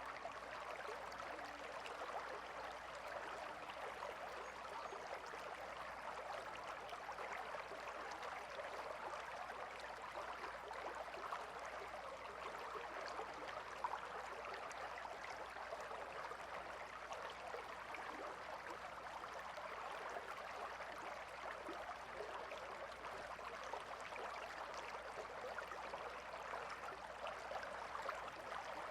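A shallow river flowing, a steady babble of water with a fine crackle of small splashes.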